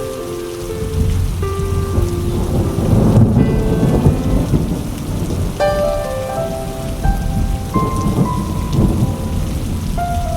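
Steady rain falling, with thunder rolling, loudest about three to four seconds in. Soft background music with held notes plays underneath.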